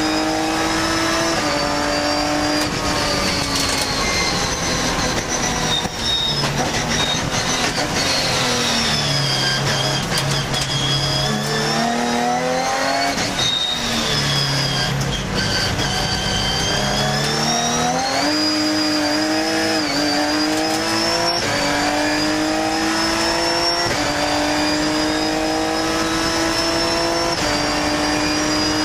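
Ginetta G50 Cup race car's Ford V6 engine heard from inside the cockpit, pulling hard through the gears with the pitch rising and then dropping sharply at each upshift. Around the middle the revs fall away and stay low for a few seconds as the driver lifts off, then climb again under full acceleration.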